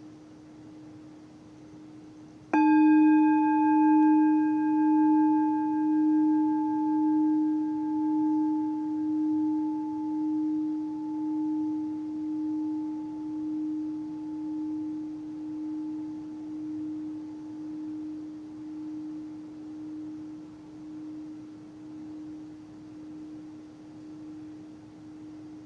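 A singing bowl is struck once, about two and a half seconds in, over the faint low ring that is already sounding. It rings with a strong low tone and several higher overtones; the overtones fade within a few seconds. The low tone slowly dies away, pulsing about once a second.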